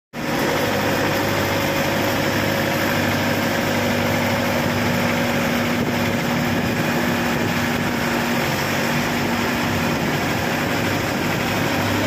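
Changfa CF608 half-feed crawler combine harvester's diesel engine running steadily as the machine creeps forward on its tracks.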